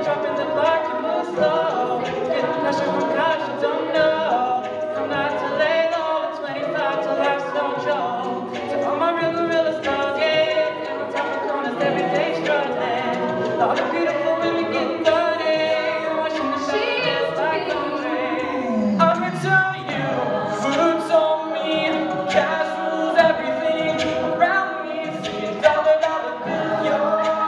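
Mixed a cappella group singing a pop mash-up live: a lead voice over sung backing chords, with sharp percussive hits through it. A voice slides steeply down in pitch about two-thirds of the way in.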